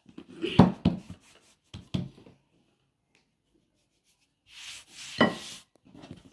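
Croissant dough being handled by gloved hands on a floured wooden board: a few soft knocks on the board in the first two seconds, then a longer rubbing swish about five seconds in.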